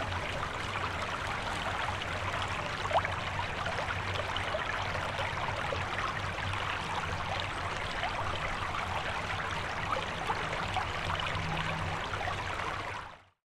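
Small woodland creek flowing and trickling: a steady rush of running water with fine splashing ticks, over a faint low hum. It cuts off abruptly near the end.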